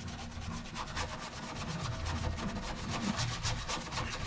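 Hand brush scrubbing the bare painted sheet-metal inner panel of a car door in quick back-and-forth strokes.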